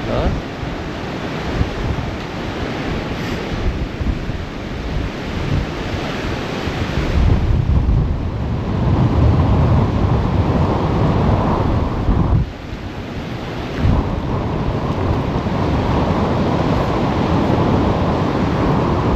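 Strong wind buffeting the microphone over the sound of surf breaking on the beach. The low rumble of the gusts grows stronger about eight seconds in and eases briefly near the middle.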